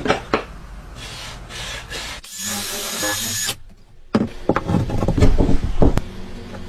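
Woodworking tools at work on wood: a power tool running, a loud burst of hissing noise that cuts off suddenly, then a run of knocks and taps.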